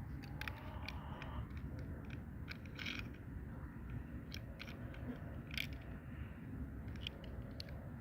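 Hands handling toy packaging and small plastic doll pieces: scattered, irregular clicks and short crinkly crackles over a low steady hum.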